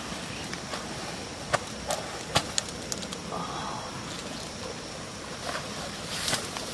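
Rustling of leafy brush with a few sharp snaps or clicks, as someone moves through scrub over rock.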